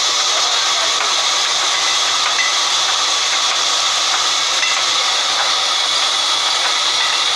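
Band sawmill running, its belt-driven drive pulley spinning under the saw table: a steady, even hiss of machinery.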